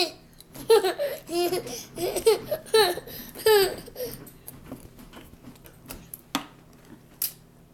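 A toddler laughing and squealing in short high-pitched peals through the first four seconds, then a few light knocks.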